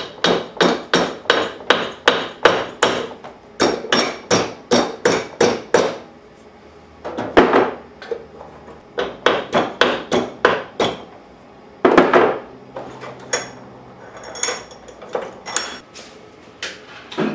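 Hammer blows on small metal bracket strips clamped in a bench vise, bending them over. The strikes come in quick runs of about three a second, with short pauses, and turn to lighter taps with a high metallic ring near the end.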